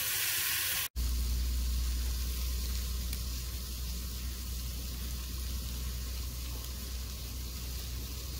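Fish fillets on a camp-stove griddle and a pan of eggs, potatoes and spinach sizzling. About a second in the sound cuts out briefly, then a steady low rumble continues with fainter sizzling over it.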